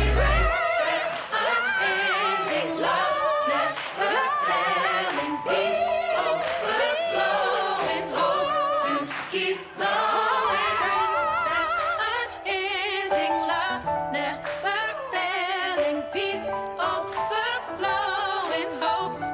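Background music: a song with several voices singing together, held notes with vibrato over a bass line.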